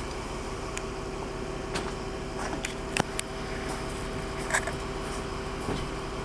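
The crane's engine running steadily with a hum while it holds the lifted hot tub. A few short sharp clicks sound over it, the loudest about halfway.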